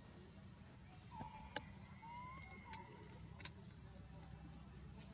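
Forest insects droning steadily at a high pitch, broken by three sharp clicks about a second apart and a couple of brief faint chirps in the middle.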